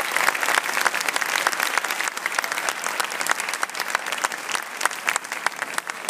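Theatre audience applauding: dense clapping that thins out and fades toward the end.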